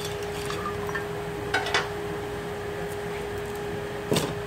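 Metal timing chain clinking against the sprockets and guides of a Ford 3.0 V6 as it is pulled off by hand: two light clinks about a second and a half in and a louder one near the end, over a steady background hum.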